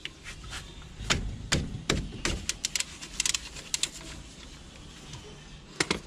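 Scattered metallic clicks and knocks of a socket wrench working the lower caliper pin bolt on a Chevrolet Beat's front brake caliper as it is undone, with a quicker run of clicks about two and a half seconds in.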